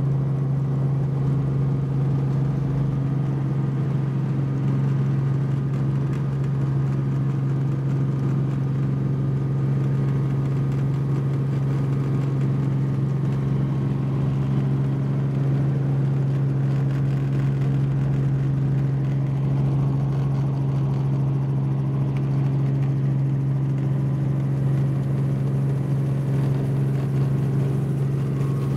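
Light helicopter's engine and rotors running steadily, heard from inside the cockpit: a constant low hum with steady overtones that holds its pitch throughout.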